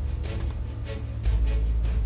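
Background music with deep bass and a steady beat.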